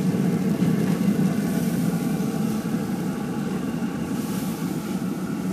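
Rec Tec Mini pellet grill running at full heat: a steady low hum from its fan, with faint even overtones.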